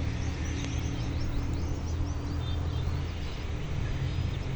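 An engine running steadily with a low hum, while birds chirp in quick, high, short calls through roughly the first half.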